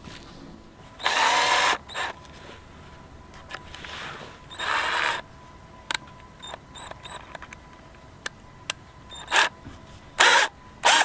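Cordless drill motor run in short trigger bursts, spinning up and stopping: one about a second in, another near the middle, and three quick ones near the end, with a few light clicks between them.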